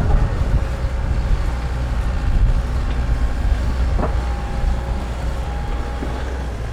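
Doosan DX140LCR-5 excavator's diesel engine running under work with a steady low drone and a faint steady whine above it. A short knock comes about four seconds in.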